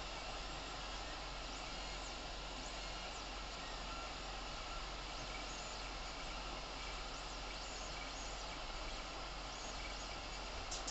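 Creality Ender 3 3D printer running mid-print: a steady fan hiss with faint whining stepper-motor tones, a few of them briefly gliding in pitch as the print head moves around the part.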